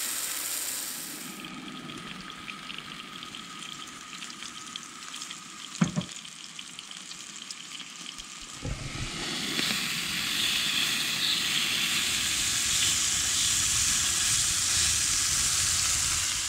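Steady crackling hiss, much like frying, growing louder about halfway through and cutting off suddenly at the end. A sharp knock about six seconds in and a low thump a few seconds later.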